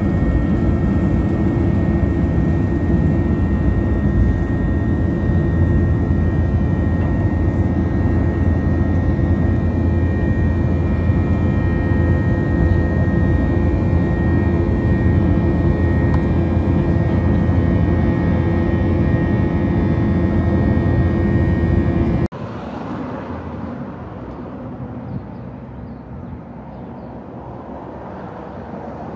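Airliner cabin noise during takeoff roll and climb: a loud, steady rush of jet engine and air noise with a steady high whine. It cuts off suddenly about 22 seconds in, giving way to quieter outdoor street ambience.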